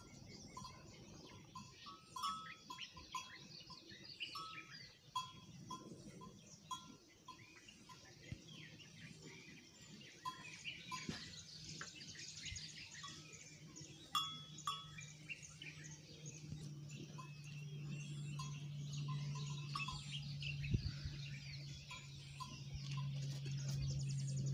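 Many small birds chirping and calling. A steady low hum comes in about eight seconds in and grows louder toward the end.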